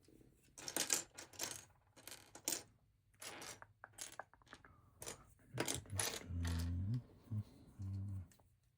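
Loose plastic LEGO bricks clattering and clicking as they are sorted through by hand. Two low-pitched droning sounds come near the end, the first about a second long.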